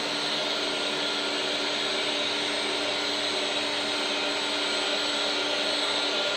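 Motor-driven hydraulic pump of a 1/14-scale LESU Komatsu PC360 RC excavator running steadily: a constant whirring whine over a hiss.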